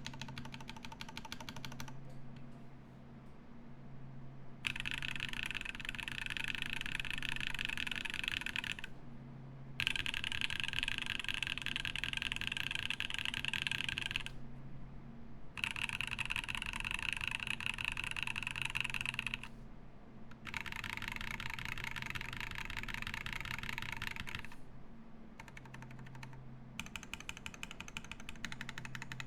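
Fast typing on a Keycult No.2/65 mechanical keyboard with lubed Husky switches on an aluminium plate and GMK keycaps. It comes in four dense runs of about four seconds each with short pauses between, and lighter, sparser keystrokes at the start and near the end.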